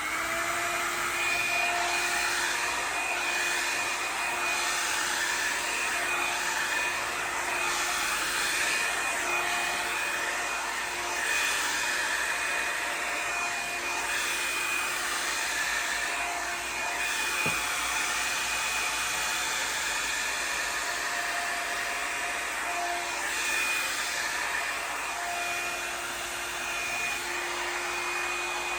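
Revlon One-Step Volumizer hot-air brush dryer running: a steady motor whine over rushing air, the whine wavering a little in strength.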